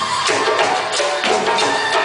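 African hand drums, djembes among them, playing live in a steady driving rhythm, with sharp strokes falling about three times a second.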